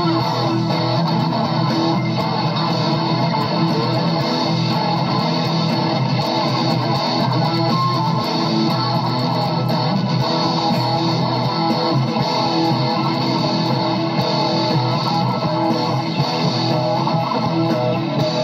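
Solid-body electric guitar being played without pause, a continuous run of notes at a steady level.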